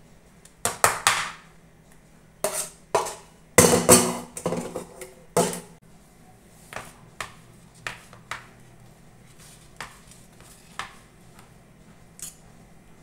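A steel spatula scraping and knocking against a cooking pot and a stainless-steel plate as thick raw-mango pulp is scooped out and dropped onto the plate. There are clatters in the first half, the loudest a little before the middle, then lighter, scattered taps as the pulp is spread.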